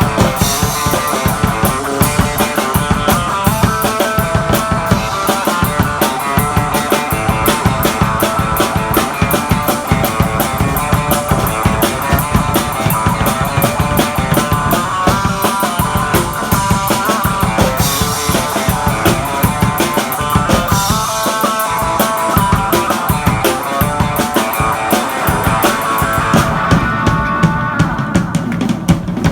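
Electric guitar (a Fender Telecaster through a small tube amp) and a drum kit playing rock together live, with a steady beat; the cymbals drop out briefly near the end.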